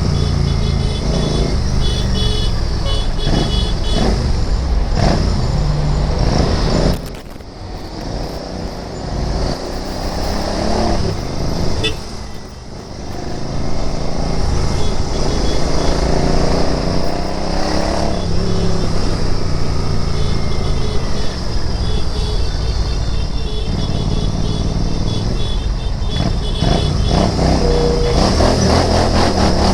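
Royal Enfield Interceptor 650's 648 cc parallel-twin engine on the move, its pitch rising again and again as it revs up through the gears. It goes quieter for several seconds about seven seconds in as the throttle is eased off, then pulls hard again.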